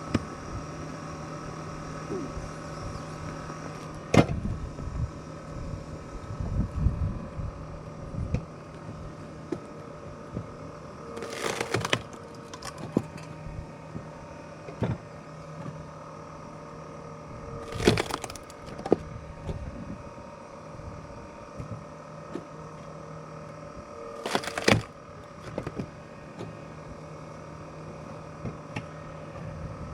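Firewood logs splitting with a loud cracking and tearing of wood three times, about six to seven seconds apart, with a sharp knock before them. A steady mechanical hum runs underneath.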